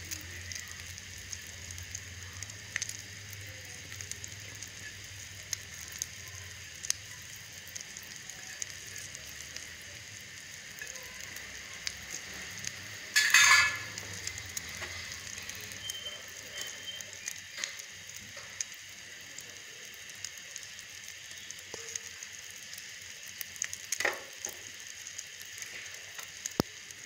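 Half-cooked egg omelette sizzling in a frying pan, a steady hiss with small scattered pops. A brief louder noise cuts in about halfway through, and a smaller one near the end.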